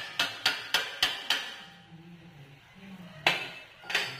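Hammer blows on a steel part of a mechanical tree shaker being assembled: a quick run of about six strikes in the first second and a half, then two more strikes about a second apart near the end.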